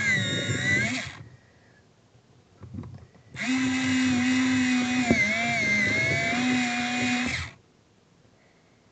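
Westcott iPoint Evolution battery-operated electric pencil sharpener sharpening a colored pencil, its motor whining with a slightly wavering pitch. It stops about a second in, a few faint clicks follow, then it runs again for about four seconds and stops.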